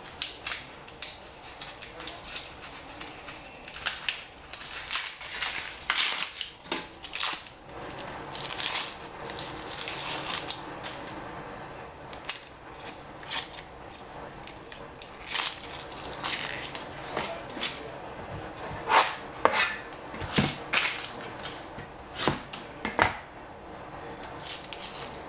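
Dry onion skin being peeled off by hand, with rustling and crackling, mixed with scattered sharp clicks and knocks of a cleaver and the onion against a plastic cutting board.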